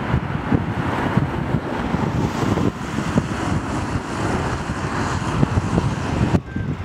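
Jet engine noise of an Airbus A380 climbing away after takeoff, heavily buffeted by wind on the microphone. The sound changes abruptly near the end.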